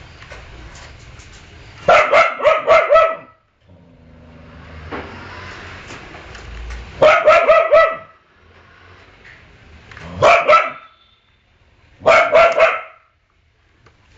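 A dog barking at a toy car in four quick volleys of three to five sharp barks each, with short pauses between.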